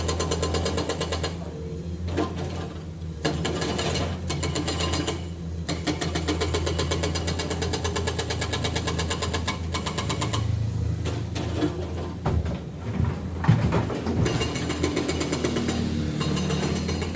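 Dump truck's diesel engine running steadily at idle with an even pulsing beat, plus one sharp knock about 13 seconds in.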